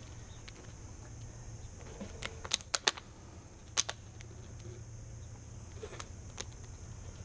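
Short, sharp clicks as a freshly quenched, silver-brazed bronze cymbal is handled in gloved hands: a quick run of four a little past two seconds in, a pair near four seconds, and two more around six seconds. A steady high-pitched insect chorus, like crickets, runs underneath.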